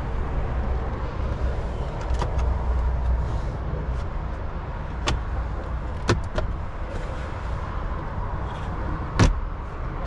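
A few clicks and knocks from the 2021 Ford F-150 Tremor's cab fittings being handled, the loudest a thump about nine seconds in, over a steady low rumble.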